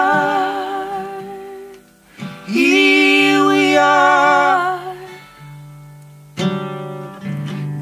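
Folk song on Martin acoustic guitar, with two long wordless sung notes held over it. After the singing stops, a fresh strum about two-thirds of the way in leads into the next verse.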